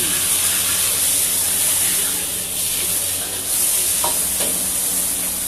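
Hokkien mee stir-frying in a wok over a high gas flame: a steady sizzle and hiss of the frying noodles with the burner running.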